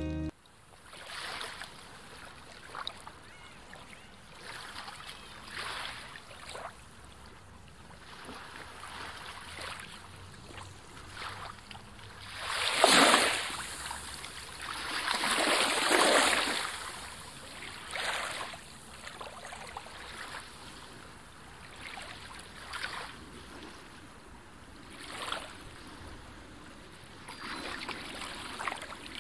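A rushing noise that swells and fades in gusts, loudest about 13 and 16 seconds in.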